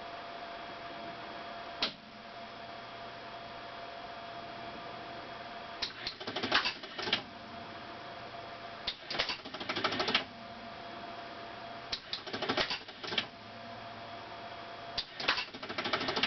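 1975 Bally Wizard electromechanical pinball machine going off as an alarm clock: its relays and mechanisms clatter in four bursts of rapid clicks, about three seconds apart. A single click comes about two seconds in, over a steady hum.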